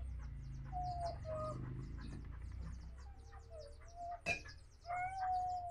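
Chickens clucking, a few short calls spread through, with a single sharp click about four seconds in.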